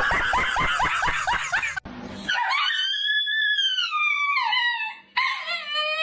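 A dog howling. It starts with a quick run of short yips, about five a second, then gives two long howls; the first slides down in pitch at its end.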